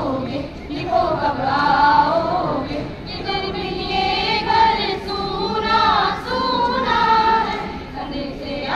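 A group of voices singing together in long held notes that bend up and down.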